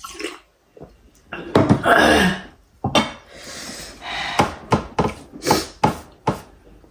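Close-miked eating sounds: a loud slurp about a second and a half in, then a quick run of sharp clicks and knocks of dishware, about three a second.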